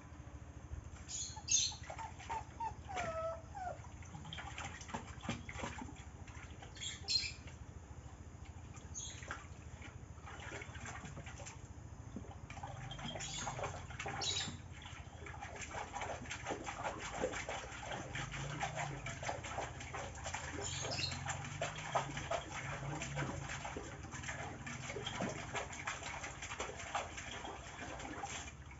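Thai ridgeback dog splashing and pawing at water in a clay basin, a rough, irregular sloshing that grows busier about halfway through, with birds chirping now and then.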